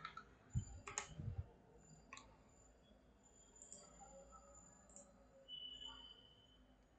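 Near silence with a few faint clicks in the first two seconds or so, from working a computer mouse and keyboard; a faint brief high tone sounds about six seconds in.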